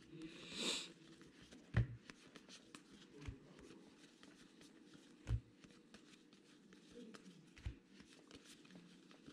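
A pack of Topps baseball trading cards being opened and handled: a brief crinkle of the foil wrapper less than a second in, then faint clicks of cards sliding one past another, with a few soft thumps.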